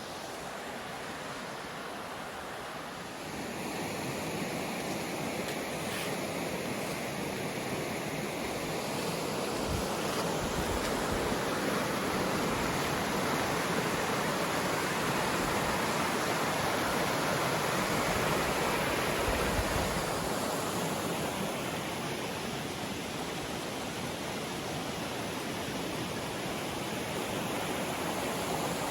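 Small waterfall rushing steadily into a pool, getting louder a few seconds in and staying strong through the middle. There are a couple of brief low rumbles, about a third of the way in and again just past halfway.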